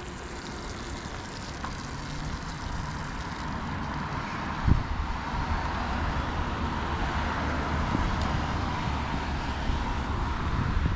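Rushing noise of a passing motor vehicle, swelling slowly and staying loud toward the end, over a low rumble, with one sharp thump about halfway through.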